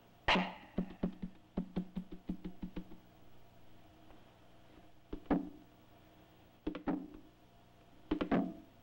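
Sparse percussion: a sharp struck hit that rings briefly, a quick run of light knocks, then single strikes spaced a second or two apart, ending in a quick double hit.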